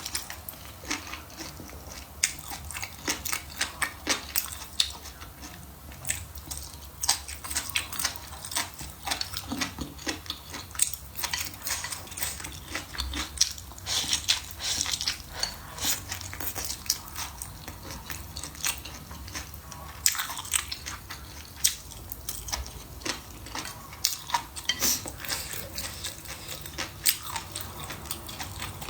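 A person chewing and biting food, with a dense, irregular run of crunchy clicks and smacks.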